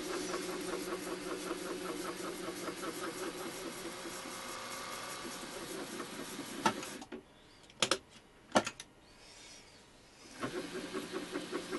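Milling machine spindle motor running with a fast rhythmic whir, stopping about seven seconds in; a few sharp clicks follow, and the motor starts again about ten seconds in. This is the stop-and-reverse of power tapping M3 threads in a metal block.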